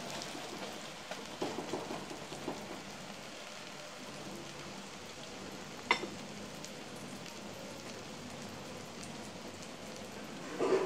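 Egg omelette frying in oil in an aluminium wok: a steady hiss. A few light knocks of a wooden spatula in the first couple of seconds, and one sharp click about six seconds in.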